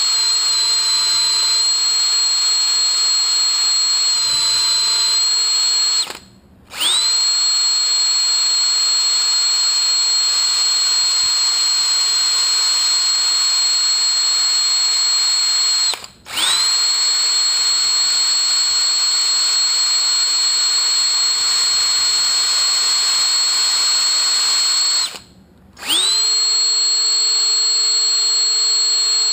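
Cordless drill spinning a red Scotch-Brite abrasive in the accumulator piston bores of a Toyota A340 transmission case, putting a crosshatch in them for the oil to hold on the rubber O-ring seals. It runs with a steady high whine, stopping briefly about six, sixteen and twenty-five seconds in, and rising again each time it spins back up.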